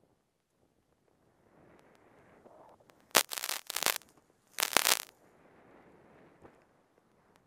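Skis turning through deep powder snow, each turn a soft whoosh. In the middle, two loud crackling rushes as powder sprays over the camera.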